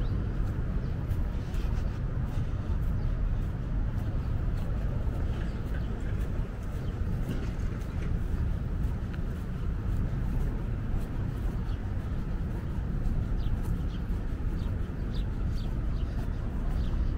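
Steady road-traffic rumble, with small birds chirping now and then.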